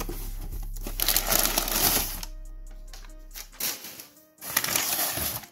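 Brown kraft packing paper rustling and crumpling in two spells as it is pulled out of a cardboard box, over background music that fades out partway through.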